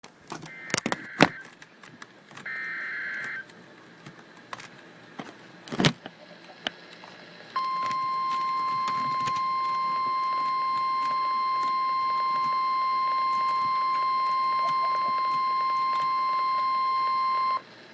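Emergency Alert System header: two short bursts of screeching SAME digital data, then a single steady attention tone of about 1 kHz, the NOAA Weather Radio 1050 Hz warning alarm, held for about ten seconds before it cuts off. A few loud knocks fall in the first six seconds.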